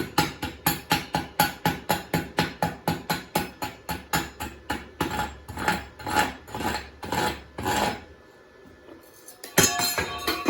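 Hammer striking steel in a fast run of blows, about four a second, slowing to a few louder blows before stopping; a single metal knock with a short ring comes near the end.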